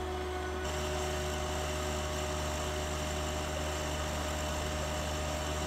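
Compact John Deere tractor's engine running steadily.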